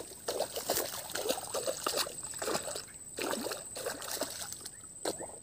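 Water trickling and sloshing with small, irregular splashes and gurgles, over a steady high-pitched whine.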